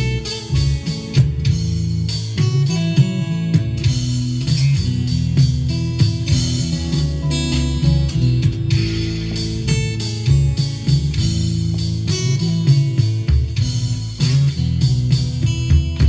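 Acoustic guitar with a capo, played as a steady run of picked and strummed chords.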